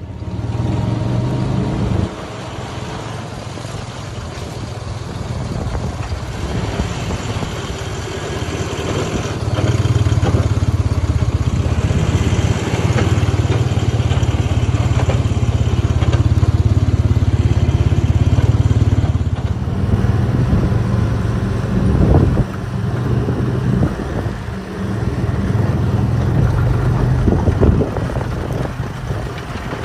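Diesel engine of heavy earthmoving machinery running at work, growing louder about a third of the way in. After an abrupt change it runs more unevenly, with a few knocks.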